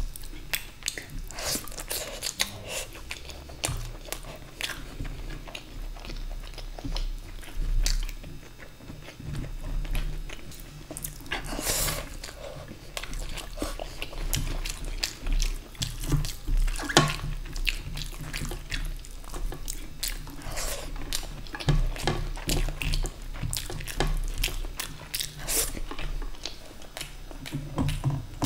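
Close-miked chewing and biting of luchi with rice and curry, with many sharp, irregular wet mouth clicks and smacks.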